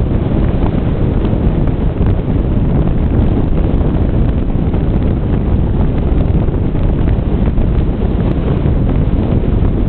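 Steady wind rumble buffeting the microphone from riding in an open convertible, mixed with the car's road noise.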